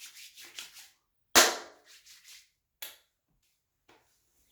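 Hands slapping aftershave splash onto the face. There is a loud sharp slap about a second and a half in and a lighter one near three seconds, after some faint rubbing.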